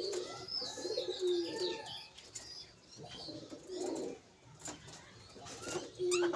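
Small caged birds calling together: low warbling coo-like notes mixed with higher chirps, in short bursts with brief pauses.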